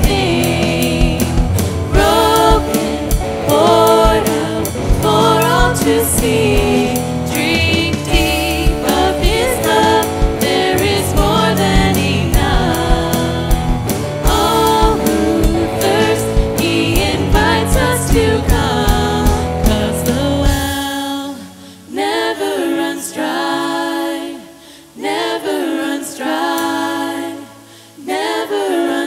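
Worship song sung by several voices over a full band with a steady drum beat and bass. About two-thirds of the way through, the drums and bass drop out, leaving the voices over a lighter accompaniment.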